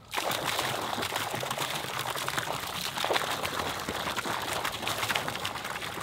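A stream of water gushing from a discharge pipe and splashing into a pond, flushing bait shiners out with it. It comes on suddenly and then runs steadily.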